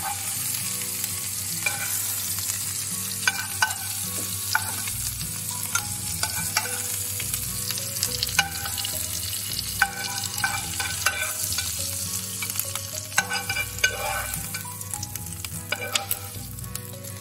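Frying pan sizzling steadily while a spoon scrapes and clicks against the pan and the oven dish, lifting out orange pieces; the clicks come irregularly, about once a second.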